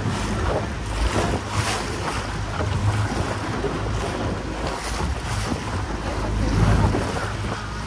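Small motorboat underway on choppy sea: a steady low engine hum under the rush and irregular splashing of water against the hull, with wind buffeting the microphone.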